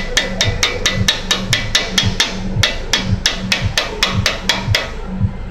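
Ratchet wrench on a long socket extension clicking rapidly and evenly, about five clicks a second, as the bolt on the front shock absorber mount is worked; the clicking stops near the end.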